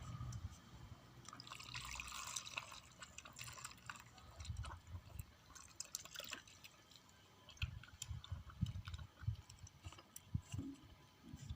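Kitten lapping milk: quiet, irregular wet licking clicks.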